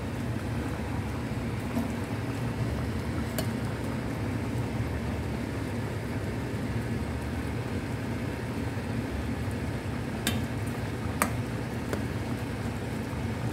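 Fish in coconut milk boiling in a pan, bubbling steadily over a low rumble. A metal ladle clinks against the pan about three seconds in and twice near the end.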